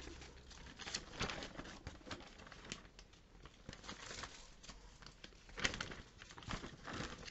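Faint, irregular rustling and crinkling of catalogue paper and packaging being handled, with scattered light taps.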